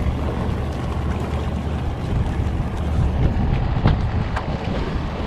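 Steady low rumble aboard a small wooden boat, with wind on the microphone, and a few sharp clicks about four seconds in.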